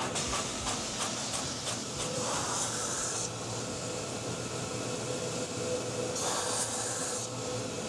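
IMAX 70mm film projector running the countdown leader forward to the picture-start frame: a steady mechanical whir with a faint hum, and two short hisses, about two seconds in and about six seconds in.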